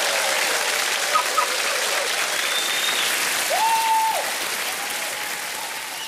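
Studio audience applauding, with a held whistle rising and falling about three and a half seconds in; the clapping fades off toward the end.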